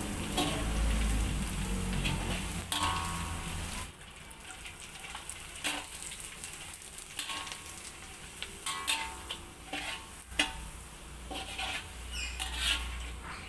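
Oil sizzling in a steel wok while a metal spatula scrapes and clicks against it, stir-frying chopped aromatics. About four seconds in it drops abruptly quieter: emping crackers frying in the oil, with occasional scrapes and taps of the spatula.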